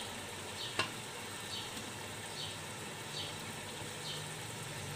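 Onion-tomato masala sizzling softly in an aluminium pot on low heat. A single sharp click comes about a second in, and a faint, high, falling chirp repeats about once a second in the background.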